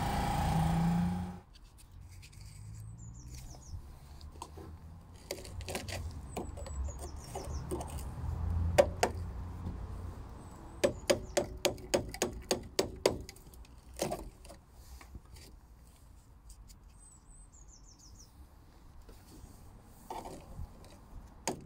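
Hammer striking a screwdriver driven as a chisel into a VW T4 Transporter's rotten steel sill, knocking out expanding foam and filler. The blows are scattered at first, then come in a quick run of about ten, a few a second, a little past halfway, with more starting near the end. A steady hum cuts off about a second in, and faint bird chirps come now and then.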